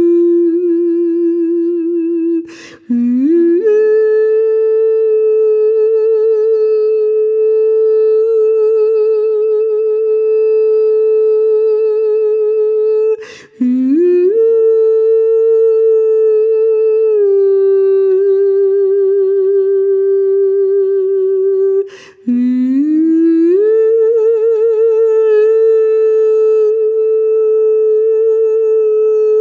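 A woman's voice singing long, wordless held notes with a wavering vibrato, as a sound-healing vocal. The tone breaks off briefly three times for a breath, and each time the next note slides up from low into a higher held pitch.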